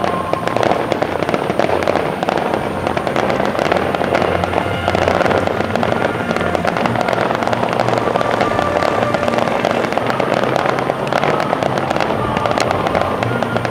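Aerial fireworks bursting in a dense, continuous barrage of pops and crackles, with music playing underneath.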